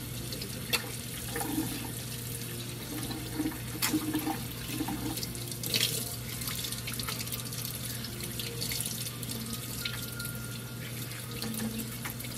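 Kitchen faucet running steadily into a stainless steel sink as whole fish are rinsed by hand under the stream, with a few sharp knocks and splashes.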